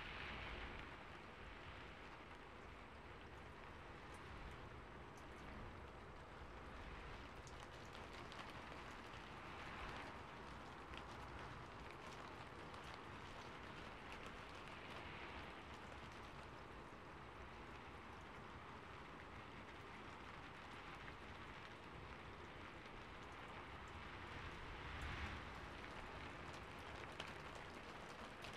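Faint, steady rain-like patter, with a few soft swells now and then.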